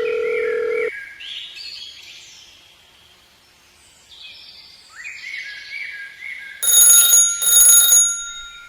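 A steady electronic beep cuts off about a second in, followed by chirping, bird-like calls. Near the end an alarm-clock-style bell rings loudly in two bursts.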